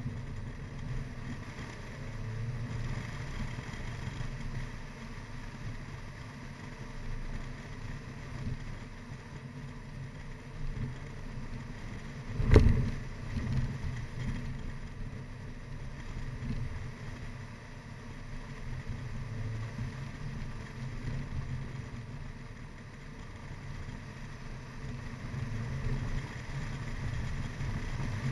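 Mini Cooper R55 Clubman driven hard up a winding road: the engine runs steadily, swelling and easing with the throttle, under a haze of road noise heard through a camera mounted on the car. There is a single loud thump about halfway through, the car hitting a bump.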